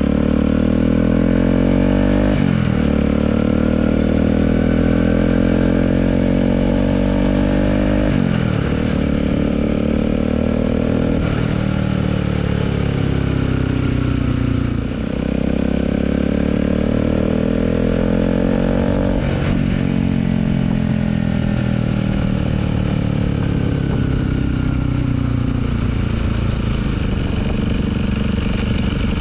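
Bajaj Pulsar RS200's single-cylinder engine running through a budget Akrapovic-style slip-on exhaust under way, its pitch climbing steadily and then dropping sharply about five times, as with upshifts through the gears, then falling off gradually over the last several seconds as the bike slows.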